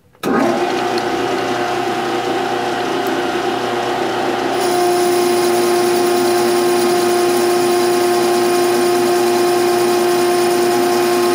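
Metal lathe running with a boring bar cutting inside a steel DOM tube set eccentric in a four-jaw chuck, taking a 19-thousandths pass. The sound starts abruptly and steadily, then grows a little louder with a strong steady tone about four and a half seconds in.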